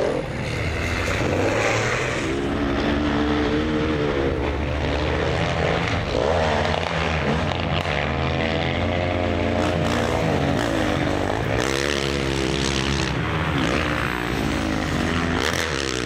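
Rally motorcycle engines on a dirt track, revving up and dropping back over and over every couple of seconds, over a steady low engine drone.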